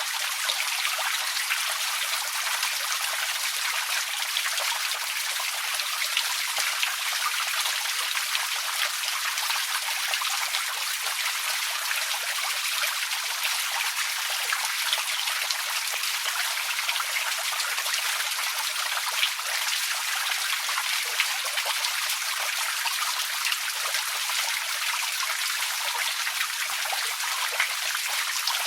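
Outdoor water fountain splashing and trickling steadily: an even, bright hiss of falling water with almost no low rumble.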